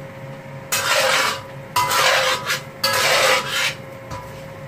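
A metal spatula scrapes across the inside of a honeycomb-textured stainless-steel wok three times, stirring chunks of taro and pork. The strokes come about a second apart over a faint steady hum.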